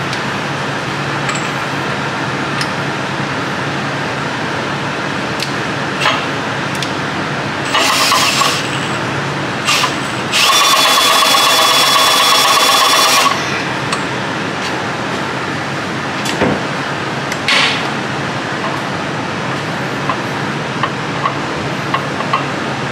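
Cordless drill spinning the pinion of a GM 10-bolt rear differential: a short burst near 8 seconds, then a steady run of about three seconds, with scattered clicks and knocks from the ring and pinion gears as they are turned. The gears knock under load because the backlash is too loose. A steady hum sits under it all.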